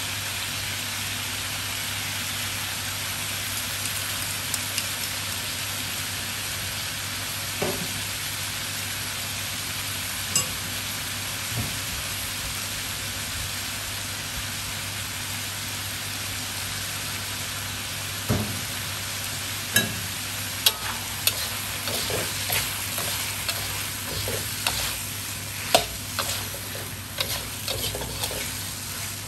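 Sliced pork belly and vegetables sizzling steadily in a wok under a sweet-and-sour sauce. About two-thirds of the way in, a metal spatula starts stirring, scraping and knocking against the wok again and again.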